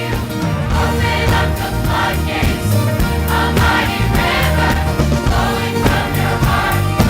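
Choir singing over an accompaniment with a steady beat.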